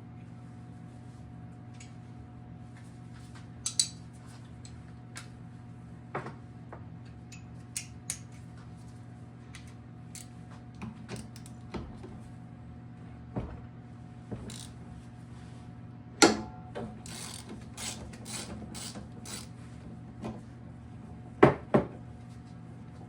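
Socket ratchet clicking in short runs, with scattered metal clinks and knocks, as rear shock bolts are worked loose on a small dirt bike. A steady low hum runs underneath, and two sharp loud clicks come near the end.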